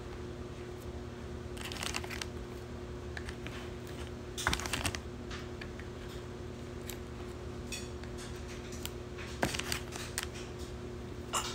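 Light clicks and scratches of fingers and fingernails picking at a small cardboard box, over a paper mailer, with the loudest cluster about four and a half seconds in. A steady low hum runs underneath.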